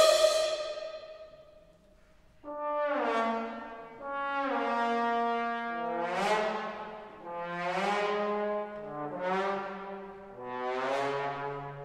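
Background music: a held note fades out, and after a short near-silent gap a run of swelling chords comes in, in short phrases of about a second each.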